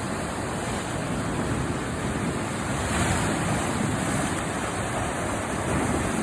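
Ocean surf breaking and washing along the rocky shoreline, a steady rush that swells about three seconds in.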